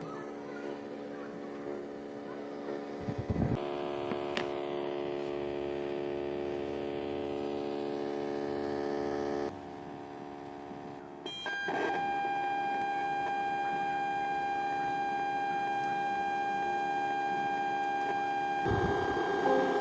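Ground loop noise from a USB Bluetooth module wired into a Pioneer car stereo: a steady electrical hum and whine made of several held tones, heard through the speakers. The tones change pitch and pattern abruptly a few times.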